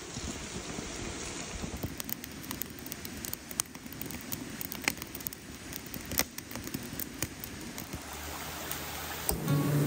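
Wood campfire crackling, with scattered sharp pops over a low steady hiss of the flames. Music comes in near the end.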